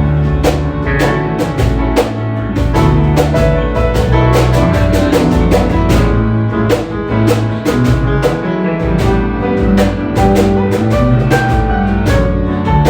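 Instrumental section of a song: a drum kit keeping a steady beat over bass and guitar, with no vocals.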